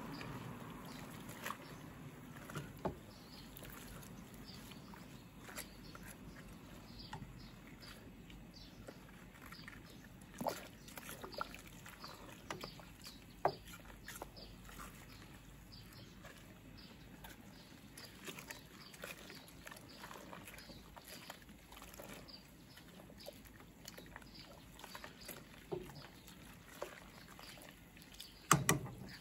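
Wild greens being stirred in a large stainless-steel stockpot of boiling water: faint splashing and bubbling, with scattered clicks and a few sharp knocks of a wooden spatula against the pot, the loudest knocks near the end.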